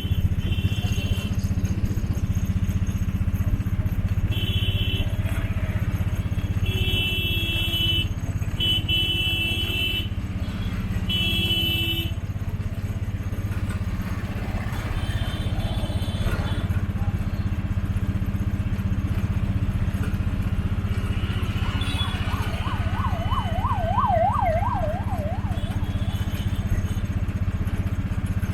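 Busy street traffic: a steady engine and road rumble with repeated vehicle horn honks through the first twelve seconds. Near the three-quarter mark a fast warbling siren-like horn sounds for about three seconds.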